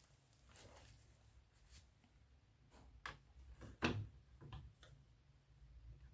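Faint, scattered clicks and knocks of a hand working among the cables and metal bracket under a scooter's handlebar cover, with two louder knocks about three and four seconds in.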